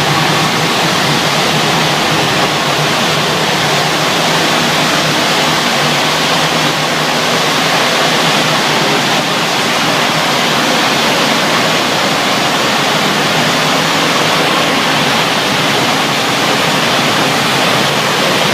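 HVAC cooling tower running: a loud, steady rush of water falling through the tower.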